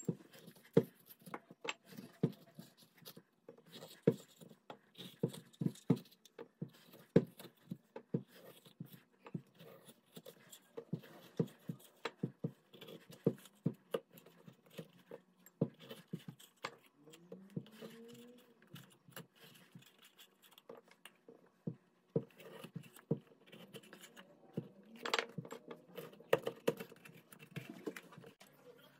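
Irregular light knocks and clicks of hard objects being handled, about one or two a second, with a short rising squeak about halfway through.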